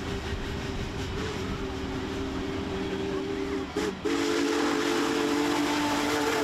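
Union Pacific Big Boy 4014's chime steam whistle sounding a long blast of several notes at once, breaking off briefly just before four seconds in and coming back louder. Freight cars rumble by on the other track under it.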